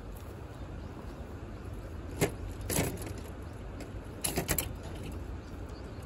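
Metal folding camp table being set up: a sharp click about two seconds in, then a short clatter and a quick cluster of clanks past the middle as its legs are handled, over a steady low outdoor rumble.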